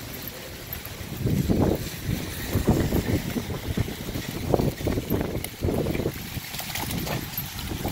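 Wind buffeting the microphone in irregular low rumbling gusts, over a steady hiss.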